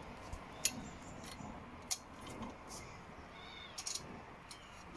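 Faint, scattered clicks and taps from the steel pannier frame and its bolts being handled and fitted to the motorcycle. Two short, high chirps sound around the middle.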